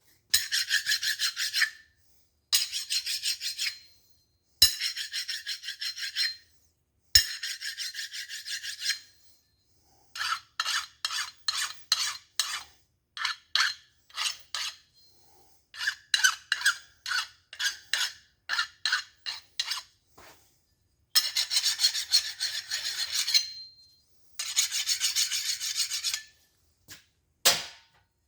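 Hand file rasping across a steel connecting rod, taking off high spots and burrs: a few long strokes, then a run of quick short strokes, then long strokes again.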